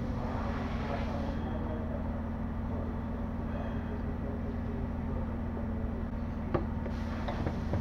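A steady low mechanical hum, with light rustling and knocking of hands and a rag working under the car, and a couple of sharp clicks near the end.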